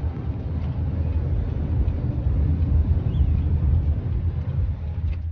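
Road and engine noise inside the cabin of a moving SUV: a steady, deep drone that cuts off abruptly.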